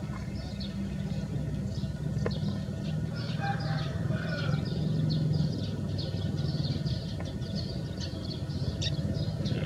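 Outdoor village ambience: many short, high bird chirps over a steady low hum, with a chicken calling once about four seconds in.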